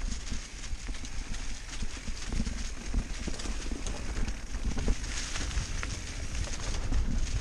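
Mountain bike riding fast down a dirt singletrack covered in fallen leaves: tyres rolling and crunching over leaves and dirt, with the bike rattling and knocking irregularly over bumps. Wind rumbles on the microphone.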